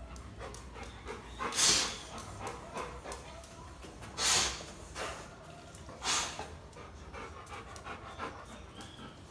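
Dogs sniffing hard at the gap under a closed door, with three loud rushing sniffs about one and a half, four and six seconds in and quieter panting and sniffing between.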